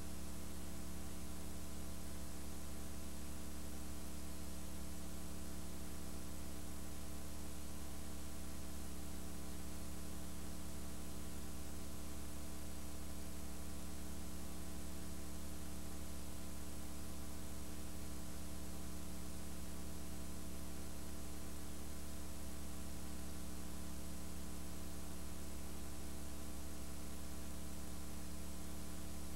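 Steady electrical mains hum with a layer of hiss: noise from the recording equipment, with no arena sound coming through.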